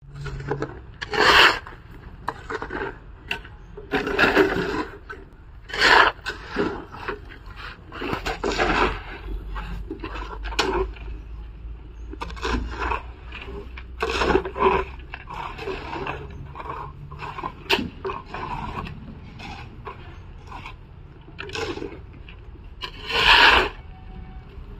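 Steel shovel scraping into loose gravelly concrete mix and tipping it into a tray mould, with the mix being scraped and spread level in the mould by hand. Irregular rasping scrapes every second or two, the loudest near the end.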